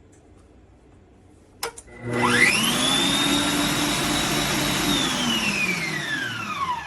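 COOKLEE 660 W stand mixer's electric motor: a click, then the motor whirs up to a steady high whine, runs for about three seconds and winds down with falling pitch as it cuts out by itself while still set to speed 1. The mixer is faulty and dies shortly after starting.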